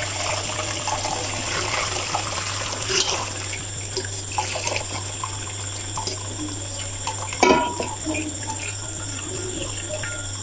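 Beef yakhni stock being poured from a pot through a steel mesh strainer into a steel pan, splashing, with the pour tailing off after the first few seconds. About seven and a half seconds in comes a single sharp knock, the loudest sound.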